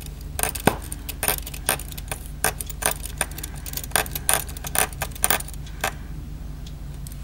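Light, irregular clicks and taps of a small screwdriver and tiny metal parts being handled while an iPhone 4's motherboard is screwed back into the chassis. There is a steady low hum underneath.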